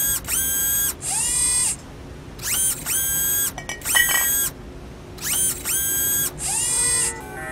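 Electric motor whine of a mechanical claw working in six short runs, each rising in pitch as it starts and falling as it stops, with a few sharp clicks about four seconds in.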